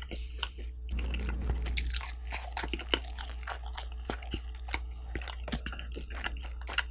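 Close-miked chewing of pizza: crisp crust crunching in irregular bites and chews. A steady low hum sits underneath.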